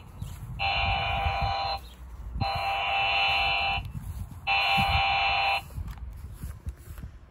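Radiodetection C.A.T4 cable avoidance tool sounding its detection tone in long electronic beeps of about a second each: one ends at the start, then three more follow. The tone is the locator's signal that it is picking up a buried cable or pipe as it is swept over the ground.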